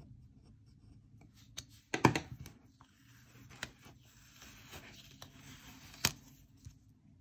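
Hands handling paper stickers on a planner page: a soft rustling and rubbing as a sticker is peeled and pressed down, with a few sharp clicks, the loudest about two seconds in.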